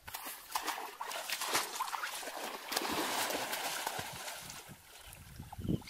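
Water splashing and sloshing in quick, irregular bursts as a person wades hurriedly through a shallow muddy stream, easing off near the end.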